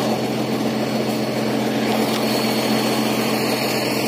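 Vehicle engine running steadily, an even low hum with a faint high whine above it.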